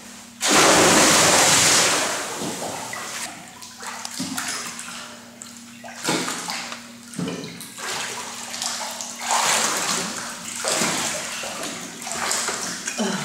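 A person jumps into an indoor swimming pool with a loud splash about half a second in, followed by irregular sloshing and splashing as she moves through the water and climbs the ladder out.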